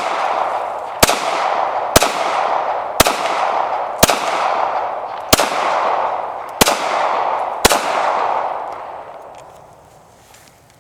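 Glock 23 .40 S&W pistol fired seven times at a steady pace of about one shot a second, each shot trailed by a long echo.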